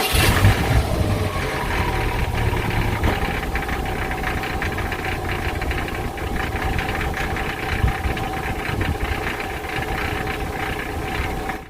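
Subaru Impreza WRX STI (GVB) turbocharged flat-four engine idling, with a fast metallic rattle from the exhaust: the sign of the stock catalytic converter's honeycomb core worn loose inside its shell and vibrating against the wall. The low end is heavier in the first few seconds, and the sound cuts off suddenly at the end.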